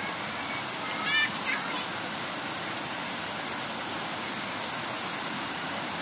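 Waterfall's rushing water pouring steadily into a rocky pool. About a second in, a few short high-pitched cries break through.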